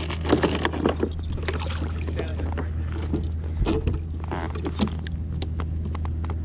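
Steady low motor hum, with scattered clicks, knocks and rustles of handling on the kayak while a caught catfish is being unhooked.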